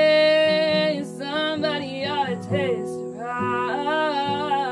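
A woman singing long held, wavering notes and a sliding run without clear words, over acoustic guitar accompaniment.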